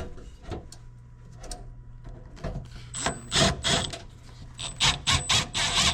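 Metal furnace panel and parts being handled and fitted: scattered clicks and knocks, then a busy run of clattering, scraping and rattling from about halfway through as a piece is worked into its hole. A faint steady low hum runs underneath.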